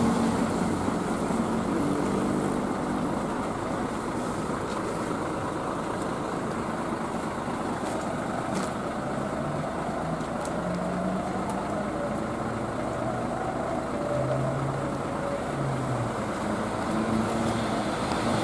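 Large coach bus idling at a stop with a steady engine rumble.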